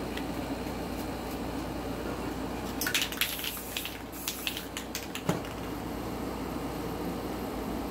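Aerosol spray-paint cans being handled: about two and a half seconds of quick metallic clicks and rattles, ending in a sharper knock.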